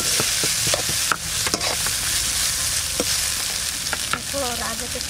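Cooked rice being stirred and turned with a metal spoon in a steel kadai over spices tempered in hot oil. The oil is sizzling steadily, with irregular clinks and scrapes of the spoon against the pan.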